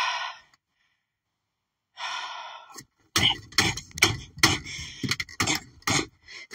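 A hand banging repeatedly on a dashboard-mounted Kenwood car stereo to jolt the non-working radio into playing: about a dozen sharp knocks at three or four a second in the second half. Before them come two huffing breaths with a second of silence between.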